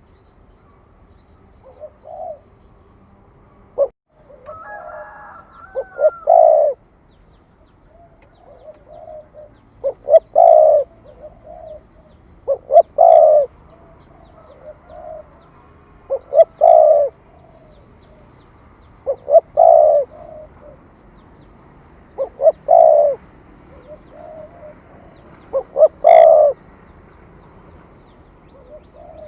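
Spotted dove cooing: a phrase of two or three short notes ending in one longer, loud coo, repeated about every three seconds, with softer coos between the phrases.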